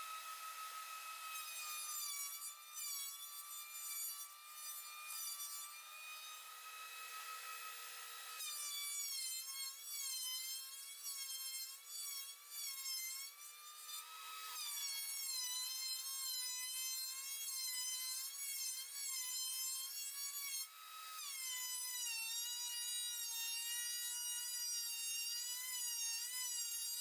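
DeWalt portable thickness planer cutting a rough-sawn plank, a high whine whose pitch sags and wavers as the cutterhead bites into the wood. The load changes several times over the pass, which is a hard one for the planer.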